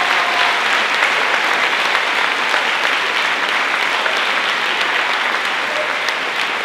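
Audience applauding steadily, a dense wash of many hands clapping.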